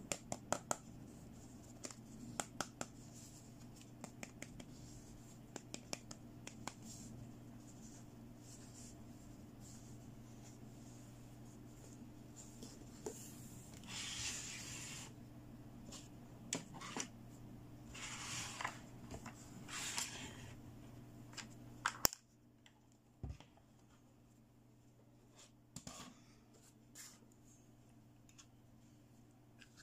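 Small plastic toy pieces handled, tapped and set down on a tabletop: many short clicks, with two stretches of scratchy rubbing or rustling in the middle. A low background hum cuts off abruptly about two-thirds of the way through.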